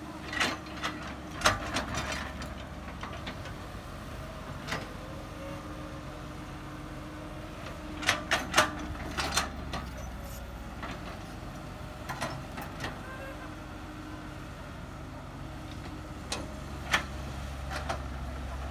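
Caterpillar E110B hydraulic excavator's diesel engine running steadily, working louder under load at times, with scattered sharp knocks and clanks as the bucket and arm dig and dump soil.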